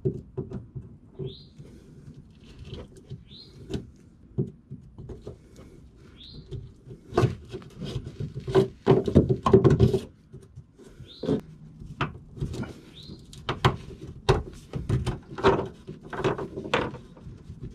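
Needle-nose pliers prying a rubber drain plug out of the plastic underside of a pickup's in-bed trunk: irregular clicks, scrapes and knocks, thickest midway and again near the end. Short bird chirps come several times.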